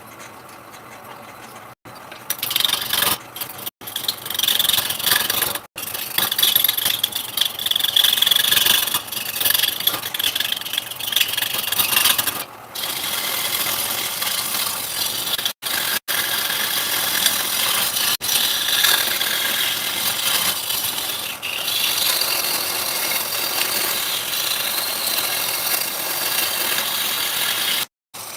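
Electric woodworking power tools running and cutting into wood, a harsh grinding and rattling noise, broken by several abrupt cuts between short clips.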